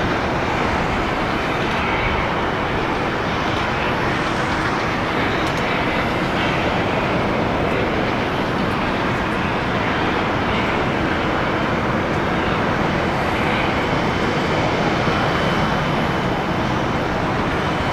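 Jet airliner engines, a steady rushing noise that swells a little near the end.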